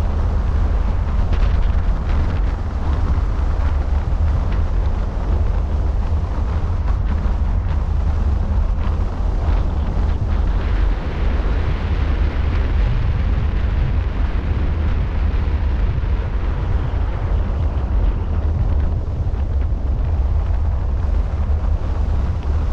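Wind buffeting the microphone of a camera mounted on the roof of a moving car at highway speed: a loud, steady, deep rumble.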